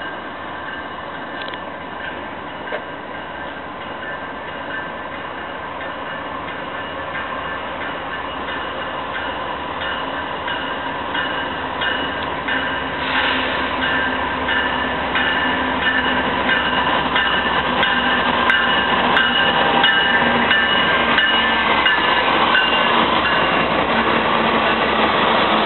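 Norfolk Southern freight train rolling by, its wheels clattering over the rail joints, with steady high-pitched wheel squeal over the top. It grows steadily louder.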